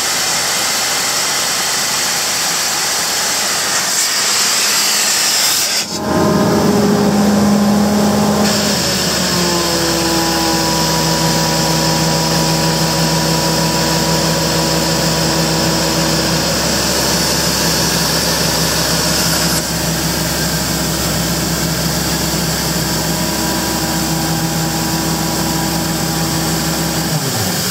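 Sullivan 900CH portable air compressor with its Cummins QSL9 six-cylinder diesel running, under a loud steady hiss. About six seconds in the sound changes abruptly and a steady hum with a clear pitch comes in. The hum sags slightly in pitch a few seconds later and then holds. Near the end the hum stops while the hiss goes on.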